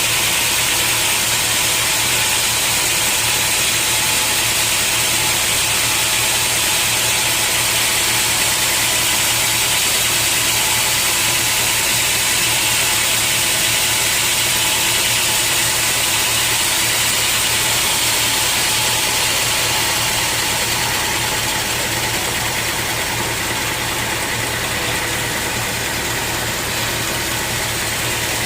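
Sawmill machinery running steadily with a loud, even noise that eases slightly about twenty seconds in.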